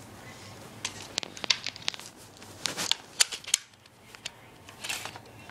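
Airsoft gun being reloaded by hand: a run of sharp plastic clicks and rattles, in two clusters about a second in and about three seconds in, with a few single clicks after.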